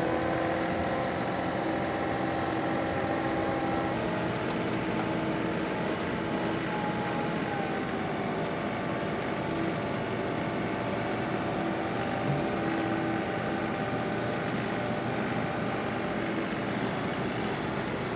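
John Deere compact tractor's diesel engine running steadily, its pitch shifting slightly about four seconds in.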